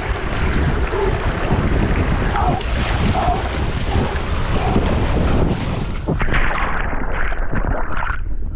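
Rushing water and wind buffeting an action camera's microphone as a rider slides down a water slide, a steady rushing noise. About six seconds in it turns muffled, and it ends with a splash into the pool.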